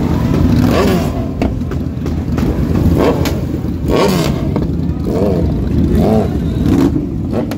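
Motorcycle engines running at low speed with a heavy low rumble, revved in short blips about once a second, each rising and falling in pitch, with a few sharp cracks among them.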